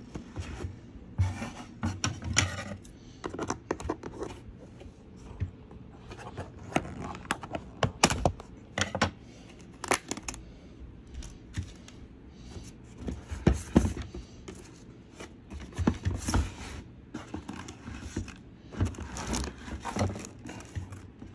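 Packaging being undone by hand: irregular rustling, scraping and sharp clicks as the ties holding the plastic toys in their box are worked loose.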